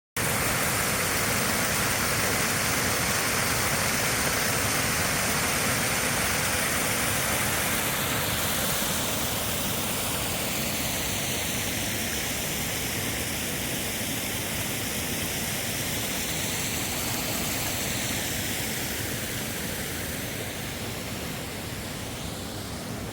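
Waterfall: a steady rush of falling water, easing slightly in the last few seconds.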